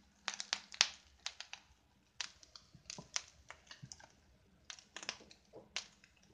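Light, irregular clicks and taps, a few a second, with short quiet gaps between them.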